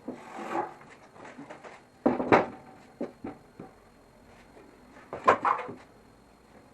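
Knocks and clatter of wooden boards and a cabinet door being handled: a short scrape at the start, a sharp knock about two seconds in, a few light clicks, then a louder cluster of knocks about five seconds in.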